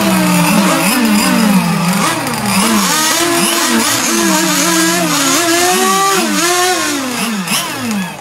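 Several two-stroke gasoline RC model race boats running together, their engines' pitch repeatedly swooping up and down as they rev and back off. The engines drop in pitch and fade near the end.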